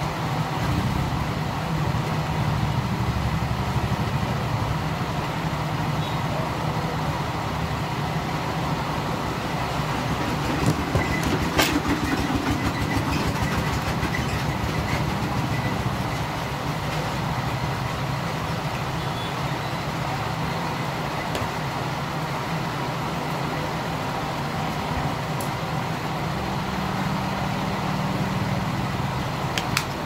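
Steady low rumbling background noise, like a running motor, with a few light clicks about twelve seconds in and again near the end.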